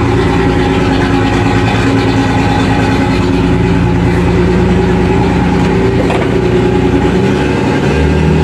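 A boat's main diesel engine runs steadily just after its first start in about a year. Its speed picks up a little near the end.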